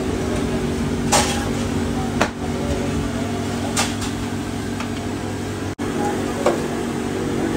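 Metal bread tins clanking and knocking, about five sharp separate hits, as baked loaves are knocked out of them onto a steel tray. A steady hum of bakery machinery runs underneath.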